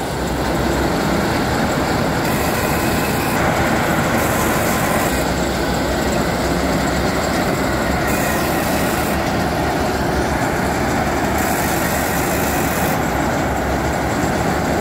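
Tracked rice combine harvester running steadily as it drives on its crawler tracks, its engine and machinery giving a loud continuous mechanical noise.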